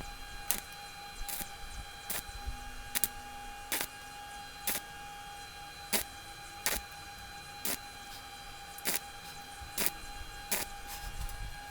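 Stick welding on stainless steel: a steady high whine, with sharp clicks about once a second as slag cracks and flicks off the fresh weld seam.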